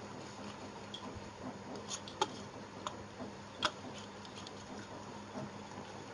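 Wire whisk stirring thick cake batter in a ceramic bowl, with scattered light clicks as the wires tap the side of the bowl, over a faint steady hum.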